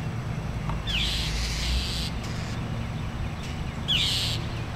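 Two harsh bird calls about three seconds apart, each a short downward sweep that trails into a raspy hiss, over a steady low background rumble.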